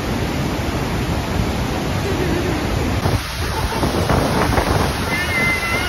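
Steady rush of Niagara Falls' falling water with wind buffeting the microphone. A brief high-pitched call near the end.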